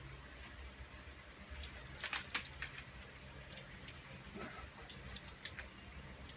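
Small fan running steadily in a homemade soldering fume-exhaust hood, a faint low hum. Several light clicks and taps about two seconds in and again near five seconds in.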